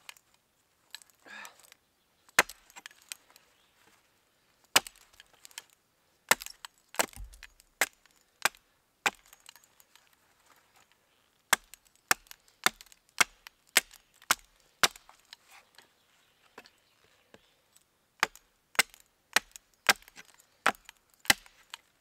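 Hatchet chopping at the end of a wooden stick stood upright on a log stump, carving it to a point. Sharp wooden knocks, a few spaced well apart at first, then in quicker runs of about two a second in the second half.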